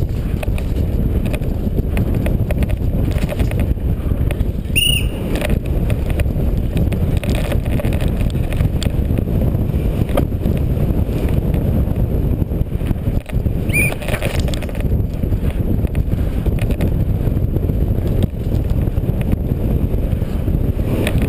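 Helmet-mounted camera audio of a downhill mountain bike at race speed on a rough dirt trail: steady, heavy wind buffeting on the microphone mixed with the rumble and rattle of the bike over the bumps. There are two brief high squeaks, about five seconds in and again near the middle.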